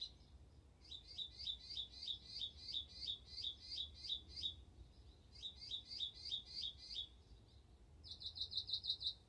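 Small birds chirping: two runs of quick, evenly repeated high chirps at about four a second, then near the end a faster, higher trill of short notes.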